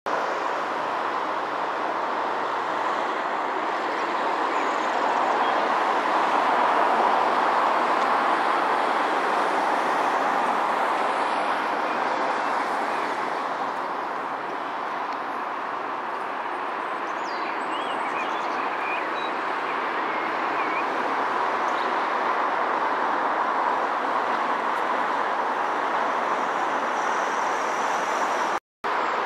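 Steady outdoor traffic noise, a smooth hiss that swells and eases slowly, with a few faint bird chirps in the middle. The sound drops out completely for a moment near the end.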